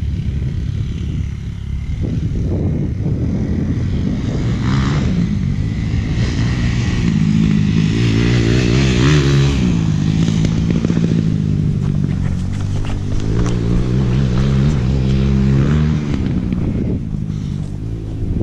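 Off-road motorcycle engine running close by at changing revs, its pitch wavering up and down, then falling away near the end.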